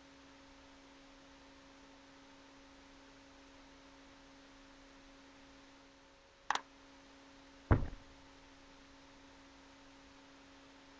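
Quiet room tone with a steady low electrical hum and hiss, broken by a sharp click about two-thirds of the way through and, a second later, a louder deep knock.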